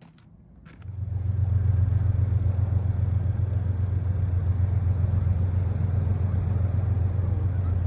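An engine running steadily with a low hum, cutting in abruptly about a second in and holding an even level.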